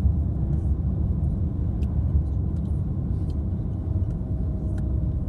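A car driving along a road: a steady low rumble of road and engine noise. From about three and a half seconds in, a faint whine slowly drops in pitch.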